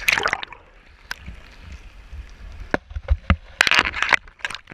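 Shallow seawater splashing and sloshing around a camera that is moving in and out of the water surface, over a steady low underwater rumble. A loud splash comes at the start, a few sharp knocks follow, and a loud cluster of splashes comes near the end.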